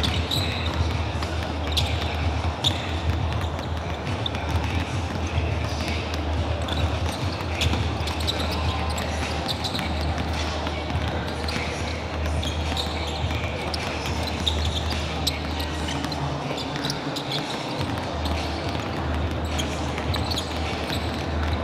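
Basketballs bouncing on a hardwood court during warm-up shooting, many irregular bounces in a large echoing gym, over a steady low hum and background chatter.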